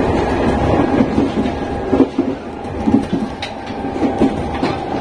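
Nankai 7100 series electric train running at high speed, heard from on board: a steady growling whine from the traction motors over the rumble of the wheels, with a few rail-joint clacks in the middle.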